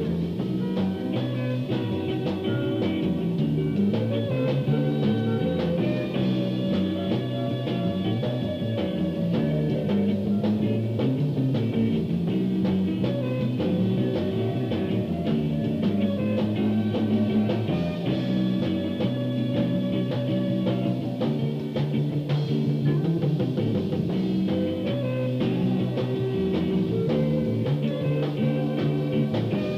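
A 1974 band recording: the band plays a steady groove, with a bass line moving under guitar and drums.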